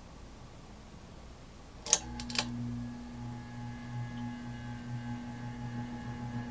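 A couple of sharp switch clicks about two seconds in, then the Moss Marco Polo ceiling fan's CEC motor starts with a steady electric hum that slowly grows louder as the fan spins up.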